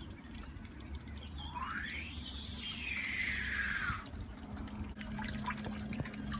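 Water beginning to drip from the emitters of a drip irrigation system, a few faint drops ticking. About one and a half seconds in, a whistling tone rises and then falls away, lasting about two seconds.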